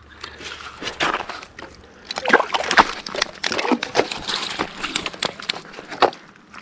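A crappie hauled up through an ice-fishing hole and flopping on wet, slushy ice: a run of irregular wet slaps and splashes, thickest in the middle.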